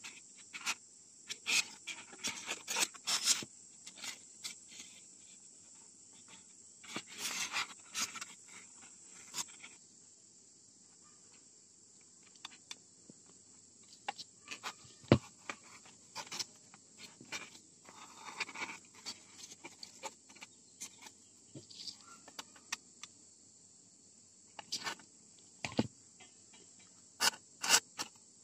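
Handling noise from hands working foam pieces, wires and a battery: irregular small clicks, scrapes and rustles over a steady high hiss.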